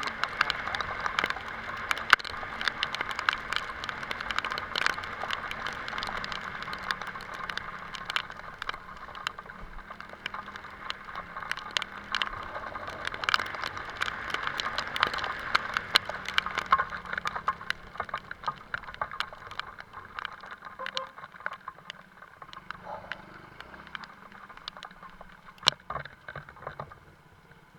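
Rain pattering in a dense stream of drops close by, easing off over the last third to scattered drops.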